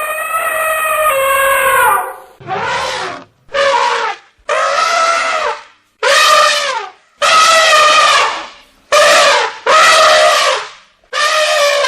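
Elephant trumpeting: a string of about nine loud, brassy calls of half a second to two seconds each, separated by short gaps, several dropping in pitch as they end.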